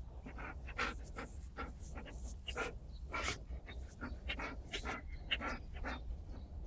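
Groenendael (Belgian Shepherd) dog panting, quick even breaths about three to four a second.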